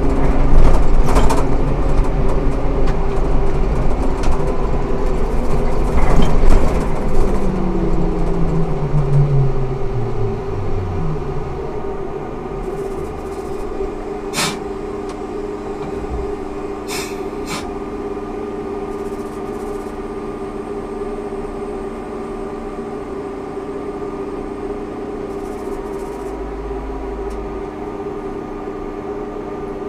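Ikarus 280T trolleybus running, its electric traction whine falling in pitch over several seconds as it slows to a stop. It then stands with a steady electrical hum, with a few sharp clicks.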